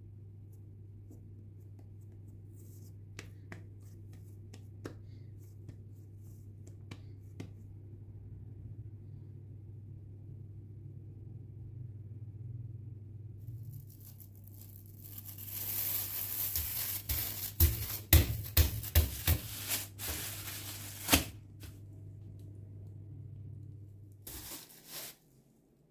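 Plastic cling film being pulled, torn and crinkled, with a loud run of sharp crackles from about fifteen seconds in that lasts several seconds. Under it runs a steady low hum that stops near the end.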